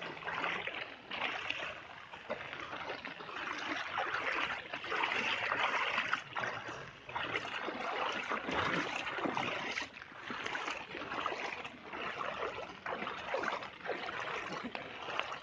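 Knee-deep floodwater sloshing and splashing around wading legs, in irregular surges every second or so, over the steady rush of the flowing flood current.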